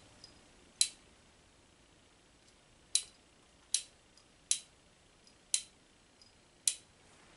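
Single-action revolver's cylinder being turned by hand chamber by chamber with the hammer at the loading click, giving six sharp metallic clicks about a second apart, with a few fainter ticks between them.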